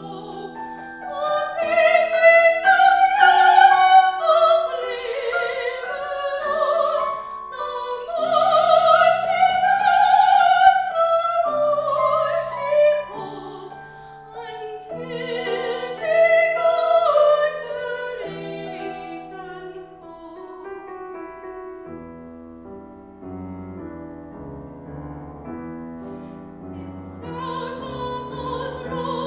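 Classical operatic singing with a wide vibrato, accompanied by piano. The voice drops out about two-thirds of the way through, leaving the piano playing alone.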